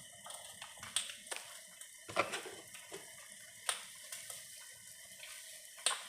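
Eggs sizzling faintly in a frying pan, a steady hiss broken by a few sharp clicks, likely a utensil against the pan.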